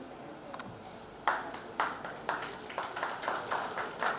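A few people clapping, separate claps at about two a second, starting about a second in.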